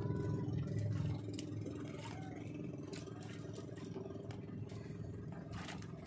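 A boat engine running steadily at a low, even pitch, easing a little about a second in, with a few light clicks and knocks over it.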